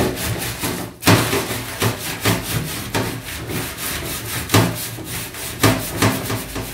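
Wire scourer and foam sponge scrubbing a burnt metal oven tray back and forth in quick strokes, about two a second, grinding crushed eggshells over it as an abrasive to lift the burnt-on grime.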